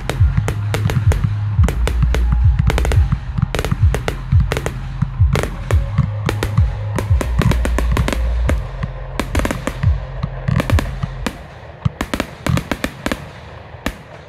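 Fireworks display: aerial shells bursting in a rapid, irregular string of sharp bangs, over a steady low drone. About eleven seconds in the drone drops away and the bangs thin out.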